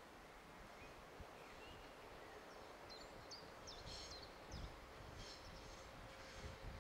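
Quiet outdoor ambience, near silence, with a few faint high bird chirps and whistles in the middle.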